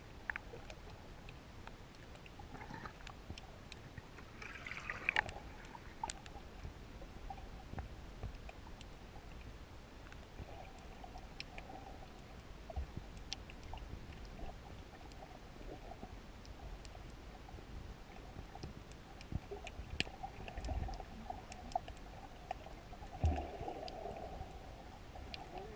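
Underwater water noise picked up by a submerged camera: a steady hiss with many scattered faint clicks and a brief gurgle about five seconds in.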